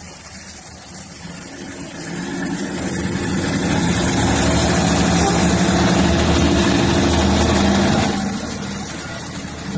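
MAN diesel railcar's engine opening up as the train pulls away. It builds from about two seconds in, runs loud and steady, then eases off about eight seconds in.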